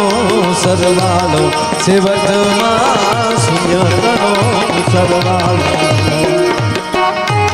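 Indian music: tabla playing a steady rhythm, its bass strokes sliding down in pitch, under a wavering melody line.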